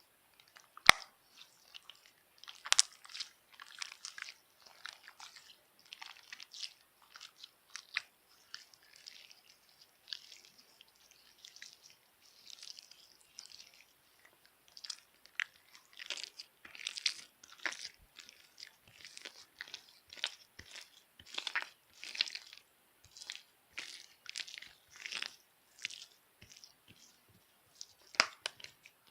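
Hard, stiff slime being squished, giving dense irregular crackles and little pops. A sharp click about a second in is the loudest.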